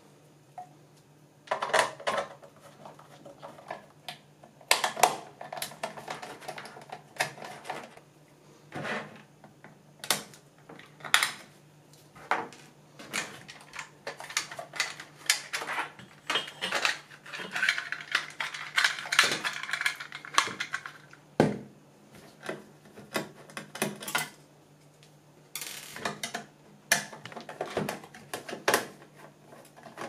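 Small metal screws being worked out of a switch-mode power supply's metal case with a screwdriver and set down, giving irregular metallic clicks and clinks of metal on metal.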